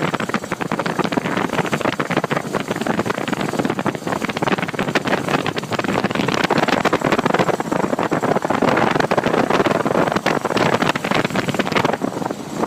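Tuned 1.2 S OHV four-cylinder engine of a 1973 Opel Kadett B running, with a fast, dense ticking clatter over the engine noise. The owner suspects a worn bearing somewhere underneath the car.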